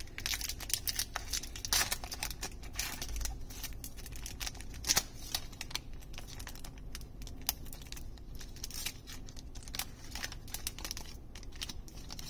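Foil wrapper of a Magic: The Gathering booster pack being torn open and crinkled by hand: a run of sharp crackles and rustles, loudest about two and five seconds in.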